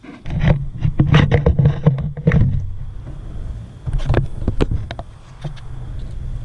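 Close knocks, clatter and rustling of handling in a car's engine bay, over a steady low hum. A faint steady high whine comes in about halfway through.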